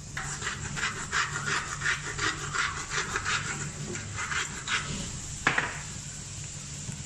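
Hand grinder mill twisted over a cooking pot: a quick grinding rasp in rapid strokes, about four or five a second, for about four and a half seconds. A single knock follows as the mill is set down on the stone counter.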